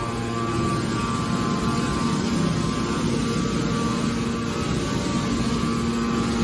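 Hydraulic aluminium-can scrap baler running, its power unit giving a steady motor-and-pump hum. The hum breaks into a rougher noise for a few seconds, then settles back near the end.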